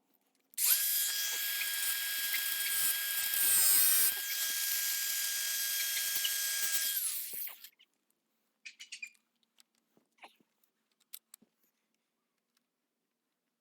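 Angle grinder running for about seven seconds at a steady pitch, louder for a moment near the middle, then spinning down.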